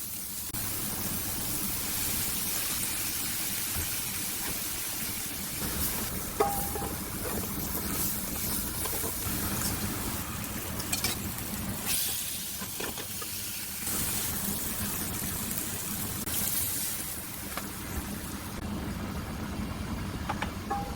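Stir-fry ingredients sizzling in a hot pan, a steady hiss with a few short knocks, typical of a spatula against the pan.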